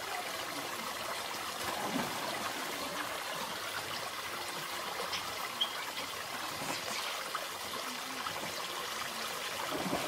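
Steady rushing of running water, as from a stream or water feature flowing into a pond, with a splash into the water near the end.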